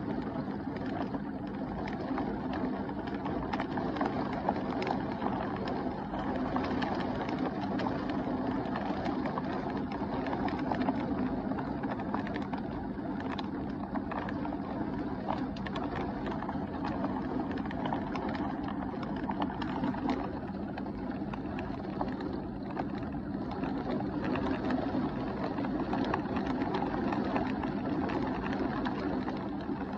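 Heavy thunderstorm rain pouring steadily, a dense hiss with many small ticks of drops striking close by.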